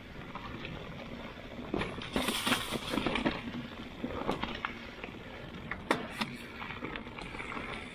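Mountain bike riding down dirt singletrack strewn with dry leaves: tyre noise on the dirt and leaves with scattered rattles and knocks from the bike, and a louder noisy stretch about two seconds in.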